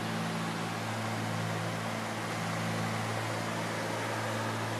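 Cabin noise of a Cessna 310Q in flight: the steady drone of its two piston engines and propellers over a constant hiss of airflow.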